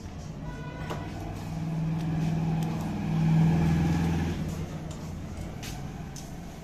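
A motor vehicle engine running, growing louder over a couple of seconds and then fading away, like a vehicle passing by. A couple of light tool clicks come near the end.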